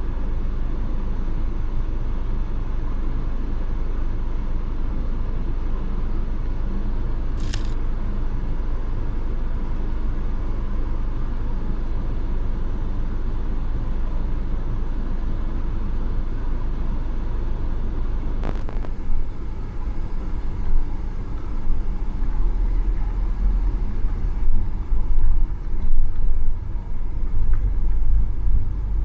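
Wind of over 75 mph buffeting the microphone: a loud, steady low rumble that turns gusty, surging and dropping, from about twenty seconds in. Two brief clicks, one early and one in the middle.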